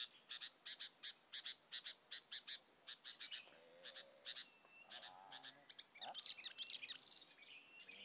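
Songbird chattering: a fast run of short, sharp chirps, about four a second, for the first three seconds, then scattered chirps and short whistles.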